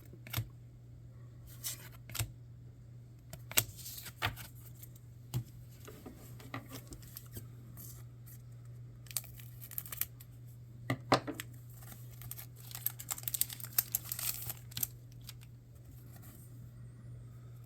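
Trading cards and their packaging being handled: scattered clicks and short rustles, with a denser stretch of crinkling and tearing about three quarters of the way through. A steady low hum runs underneath.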